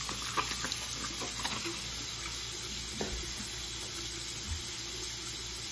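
Bathroom sink tap running steadily into the basin, with a few small splashes and knocks as water is splashed onto the face.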